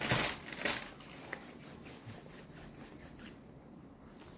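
A few crisp crunches of someone chewing fast food close to the microphone in the first second, then faint room tone.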